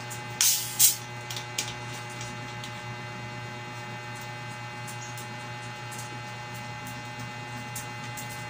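A small bottle's cap twisted open: two short, sharp bursts of noise about half a second apart, then a few faint clicks, over a steady electrical hum.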